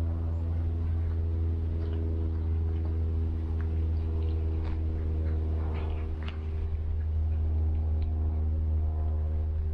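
Sustained, drone-like background music of several steady held tones over a low hum. Faint short clicks of a cat chewing rotisserie chicken are scattered through the middle.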